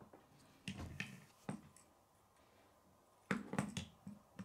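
Plastic K'nex rods and connectors clicking and knocking as the model is handled and pieces are snapped together: a few clicks about a second in, then a quick run of clicks near the end.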